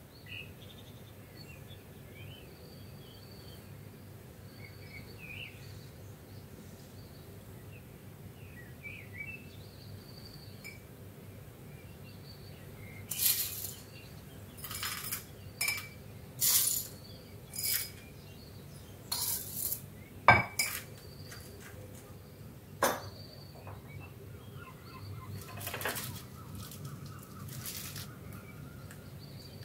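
A metal spoon scooping puffed rice from a ceramic bowl and tipping it into small glass mugs: a string of short rattling, pattering bursts, with sharp clinks of the spoon against glass and bowl about 20 and 23 seconds in. Faint bird chirps are in the background over the first half.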